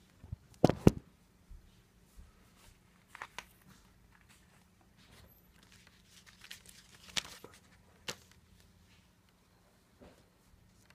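Handling noises as a protective cover sheet is put back over a laptop's LCD screen: two sharp knocks about a second in, then scattered light rustles and clicks.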